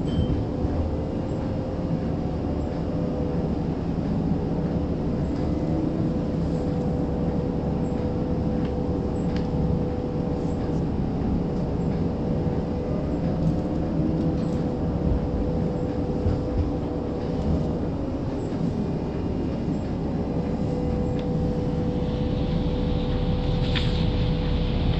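Toronto streetcar running between stops, heard from inside the car: a steady rumble of wheels on rail with a steady motor hum. A hiss comes up near the end.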